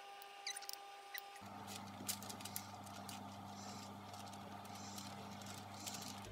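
A few faint high squeaks in the first second, then a low steady hum with scattered soft clicks and rustles of kitchen handling.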